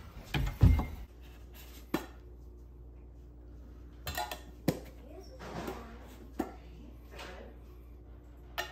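A small citronella candle container being handled and its lid taken off: a few light clinks and knocks, scattered a second or two apart, with soft handling noise between them.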